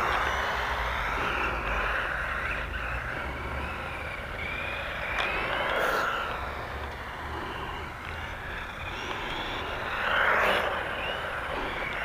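The small electric motor and gears of a 1:16 4WD RC ATV whining as it drives, the pitch rising and falling with the throttle. About six seconds in, a hissing splash as it runs through a puddle.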